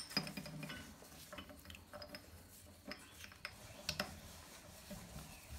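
Light metallic clicks and clinks of a new piston and its piston pin being handled and the pin pushed through the piston and connecting rod of a Linhai 300 ATV engine: one sharp click right at the start, then a few soft taps about three to four seconds in.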